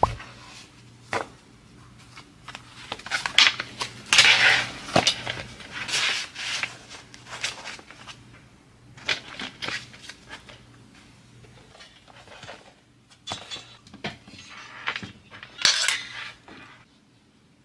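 Laptop and metal laptop stand being handled on a desk: irregular clicks, knocks and light metallic clatter with short scraping and rustling, loudest a few seconds in and again near the end.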